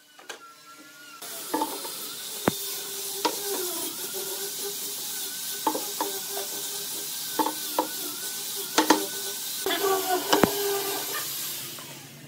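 Solid pine workpieces knocked and set down on a wooden workbench, about half a dozen sharp knocks spread through, over a steady hiss that starts abruptly about a second in and fades near the end.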